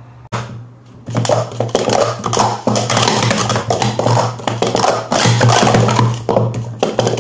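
Speed Stacks plastic sport-stacking cups clattering as they are rapidly stacked up and knocked back down on a stacking mat: a dense, quick run of light plastic clicks and taps starting about a second in.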